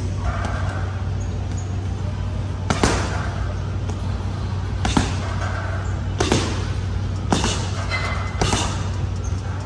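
Boxing gloves punching a teardrop heavy bag: about five sharp thuds, the first about three seconds in, then roughly one every second or so.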